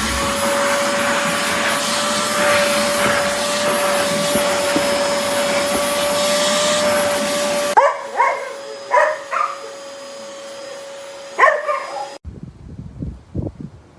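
A canister vacuum cleaner, the Oreck Commercial XL Pro 5, running: a loud rush of air over a steady high motor whine. About eight seconds in, the air rush drops away abruptly while the whine carries on, and a dog barks several times. A few seconds later the motor sound cuts off abruptly.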